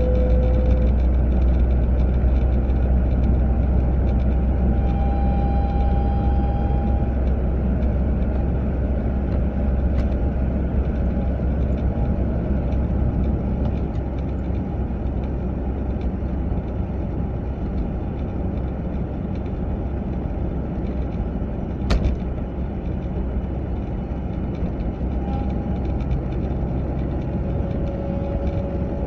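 Volvo 940 driving at about 30 to 40 mph, a steady low rumble of road and drivetrain noise. A faint whine comes and goes over it and shifts a little in pitch; this is the unidentified passenger-side noise the owner is trying to name. One sharp click sounds about two-thirds of the way through.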